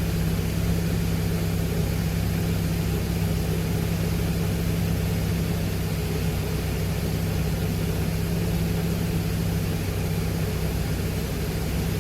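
Glastar light aircraft's piston engine and propeller droning steadily, with an even hiss of airflow, heard from inside the cockpit.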